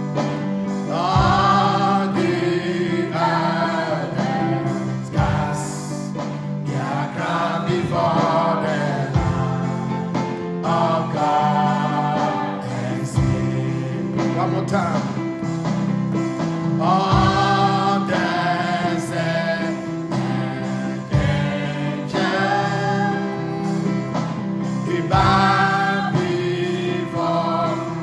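Live gospel worship music: a group of singers over sustained keyboard and bass chords, with a low thump about every four seconds.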